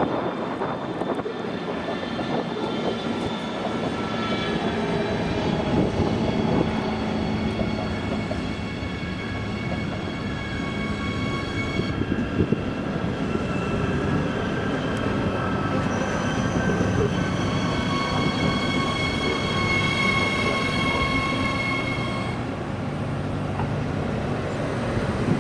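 A train running through the station with a steady rumble, and several steady high squealing tones over it for much of the first half and again from about two-thirds of the way in until shortly before the end.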